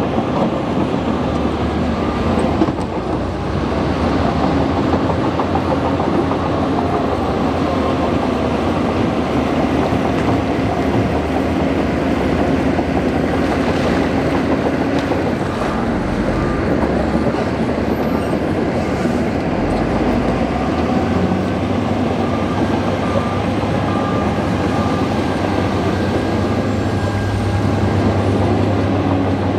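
Bulldozer's diesel engine running steadily at working speed, with continuous mechanical clatter; the engine note shifts slightly about two-thirds of the way through.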